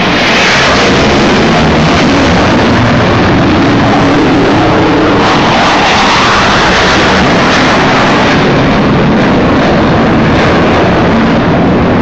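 Blue Angels F/A-18 Hornet jet flying a low pass and climbing away, its jet engine noise loud and steady. The tone slowly sweeps up and down as it passes.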